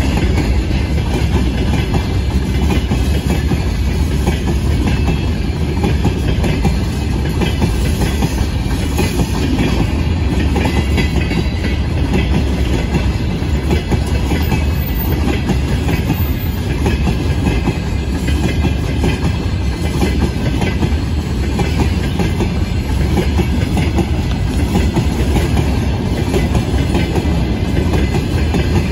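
Freight train of open gondola wagons rolling past close by, a steady rumble of wheels on rail.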